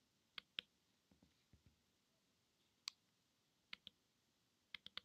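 Faint, scattered clicks of computer keyboard keys being pressed: two about half a second in, one near the middle, and a quick run of three or four near the end.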